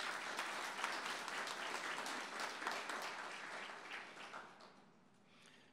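Audience applauding, many hands clapping together, then thinning out and dying away about four to five seconds in.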